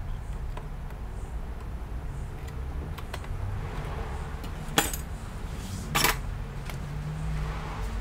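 Two sharp metallic clicks a little over a second apart, with a few fainter ticks, as small metal repair tools are handled and pressed against connectors inside an open Mac Mini. A low steady hum runs underneath.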